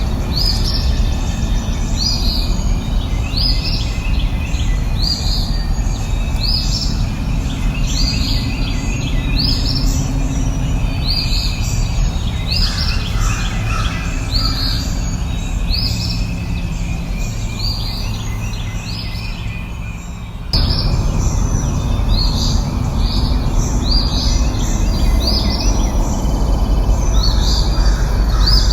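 A songbird repeating one short, high, downward-sweeping chirp about once a second over a steady low rumbling background. About two-thirds of the way through, the level jumps up suddenly, like a splice in the recording.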